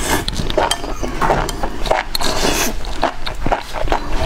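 Close-up eating sounds: wet chewing and slurping of enoki mushrooms in spicy broth, full of sharp mouth clicks and a couple of longer slurps.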